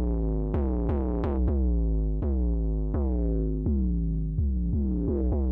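Electronic demo music: a synthesizer line whose notes are retriggered every half second or so, each gliding down in pitch just after it starts, over a steady deep bass. This is a Maschine groove being reshaped live with Perform effects on the Smart Strips.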